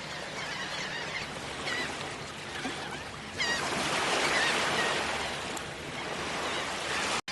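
Surf washing on a beach, with a wave breaking loudly about three and a half seconds in, while birds call over it in short, repeated cries. The sound cuts out for an instant near the end.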